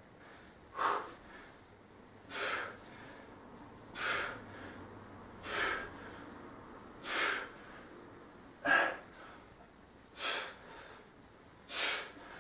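A man's sharp breaths, one about every one and a half seconds, eight in all, keeping time with each rep of a set of dumbbell squats.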